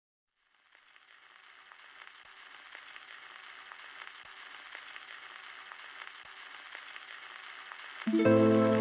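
A crackling hiss fades in slowly after a moment of silence, with a faint soft tick about every two seconds. About eight seconds in, music with sustained tones comes in much louder.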